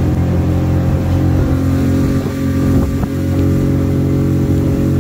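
Tohatsu MFS60 four-stroke outboard running steadily at cruising speed as the boat travels over choppy water, heard from the cockpit, with a couple of short knocks about two and three seconds in.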